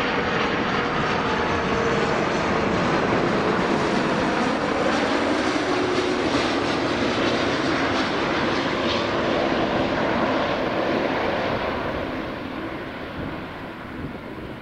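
Airbus A330 airliner's twin jet engines running on landing approach as it passes close by: a steady loud rushing noise with low tones sliding slowly down in pitch, fading away over the last few seconds as it moves off.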